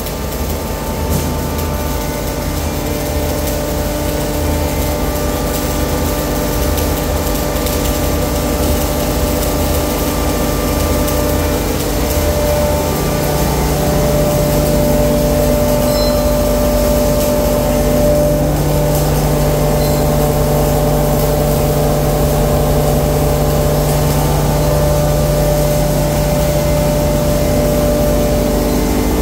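Stainless steel hammer-mill pulverizer and its blower running, a steady machine drone with several held tones while material is fed into the hopper. About halfway through it grows a little louder and its tones shift.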